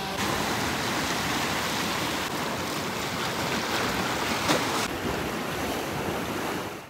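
Ocean surf washing steadily, with wind on the microphone and one brief louder rush about four and a half seconds in.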